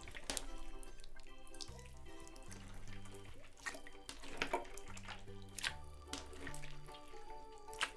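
Background music, over wet clicks and pops of slime being squeezed and stretched by hand.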